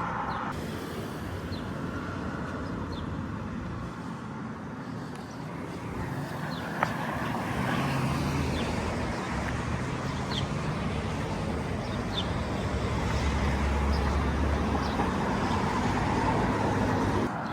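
Road traffic passing through an intersection: a steady rumble of cars, growing heavier and lower for a couple of seconds near the end as a larger vehicle goes by. A single sharp click sounds about seven seconds in.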